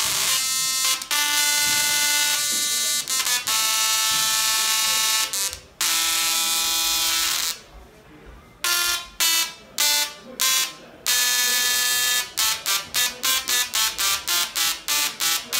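Musical Tesla coil (a DRSSTC) playing notes from a keyboard, each note a harsh electric buzz from its sparks. Phrases of held notes of a second or two at changing pitches, then a quick run of short staccato notes, about four a second, near the end.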